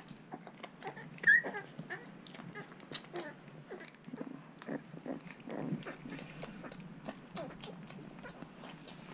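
Newborn Shar Pei puppy giving one sharp, high squeal about a second in, then scattered small squeaks and whimpers. Soft snuffling and wet clicking from the mother dog nosing and licking the pups.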